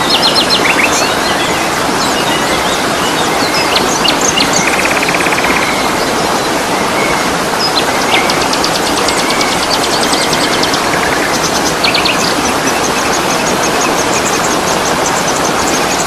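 Steady rush of falling water from a waterfall, with several small songbirds chirping and trilling over it. Fast, high trills repeat through the second half.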